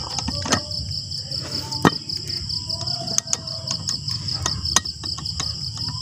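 Crickets chirping in a steady, high-pitched pulsing trill, with a few scattered sharp clicks.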